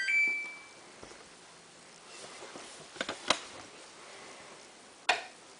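Samsung WF8804RPA washing machine's control panel beeping as it is powered on into its service mode: a short two-note electronic beep, stepping slightly higher and fading out within the first second. A few sharp clicks follow, about three seconds in and again near the end.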